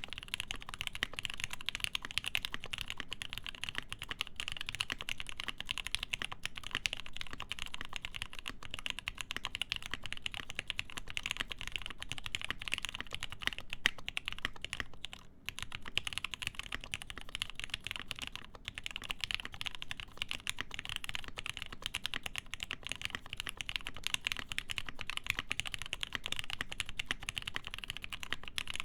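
Fast, continuous typing on a Dixie Mech Bauer mechanical keyboard with Krytox-lubed Gateron Ink linear switches, a full POM plate and GMK Modern Dolch keycaps. The typing breaks off for a moment about halfway through.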